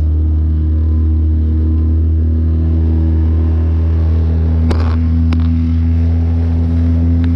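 Small outboard motor running steadily at a constant speed, driving a small open boat through choppy water. Two short sharp knocks come about two-thirds of the way through.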